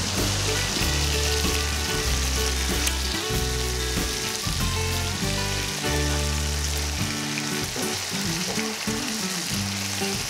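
Whole fish and prawns in masala sizzling steadily as they shallow-fry in oil in a pan, moved now and then with a spatula. Background music with a stepping bass line plays underneath.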